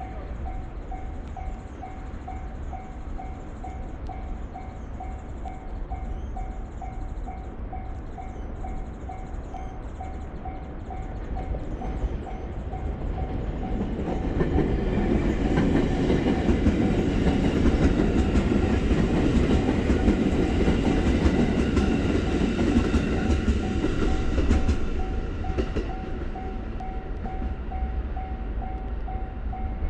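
Japanese level-crossing warning bell ringing in a steady, even 'kan-kan' rhythm while an electric train approaches and passes through the crossing. The train grows louder from about the middle and passes loudest for roughly ten seconds, then fades while the bell keeps ringing.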